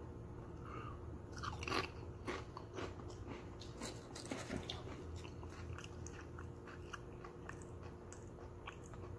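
Crunching and chewing of dill pickle potato chips: an irregular run of crisp crunches, close up, over a steady low hum.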